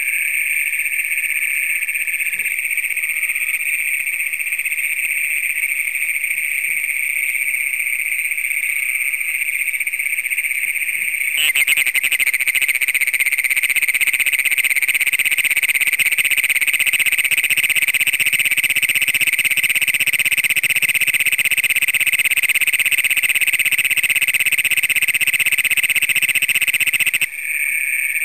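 Chorus of Great Plains toads giving their continuous high, pulsed trill. About eleven seconds in, a close male starts his own louder trill, which cuts off abruptly about a second before the end.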